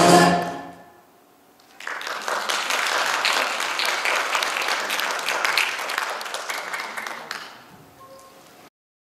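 The act's music dies away within the first second; after a short pause an audience breaks into applause, which goes on for several seconds, then fades and cuts off near the end.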